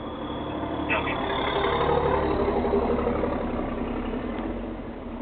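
A motor vehicle driving past on the road. Its engine and tyre noise swell as it approaches, peak a couple of seconds in and fade as it moves away.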